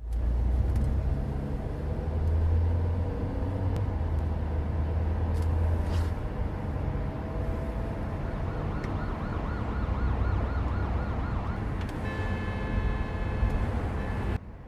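Heavy vehicle rumble, then a siren wailing up and down about eight seconds in, followed by a steady multi-toned sound that cuts off abruptly near the end.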